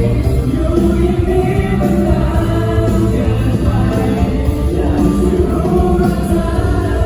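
Live band music with singing, played loud through a concert sound system.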